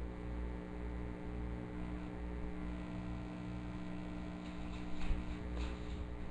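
Steady electrical mains hum on an open microphone line, with a brief faint click about five seconds in.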